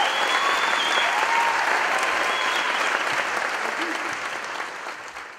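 Audience applauding, with a few shouts, fading away over the last couple of seconds.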